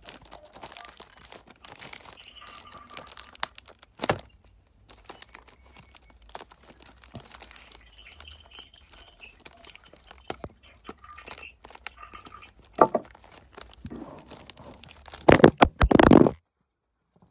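Rustling and handling noise from a phone being moved against cloth, with scattered clicks and rubbing on the microphone. There are sharp knocks about four seconds in and again near thirteen seconds, and a loud burst of rubbing near the end that stops suddenly.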